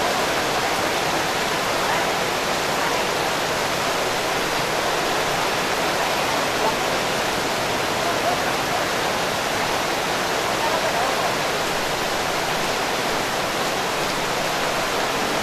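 Heavy rain pouring down in a steady, unbroken downpour.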